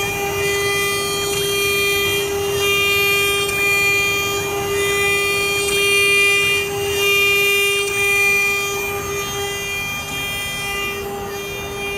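Small four-axis CNC router's spindle running with a steady high whine as its tapered bit carves a wooden figure turning on the rotary axis, a rough cutting noise under the whine. The whine dips briefly near the end.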